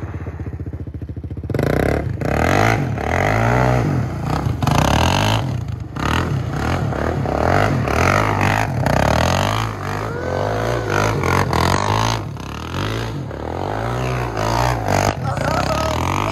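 Suzuki LTZ 400 quad's single-cylinder four-stroke engine revving up and down over and over as it is drifted in circles, rear wheels spinning on loose gravel. It pulses at low revs for the first second or so, then rises and falls repeatedly.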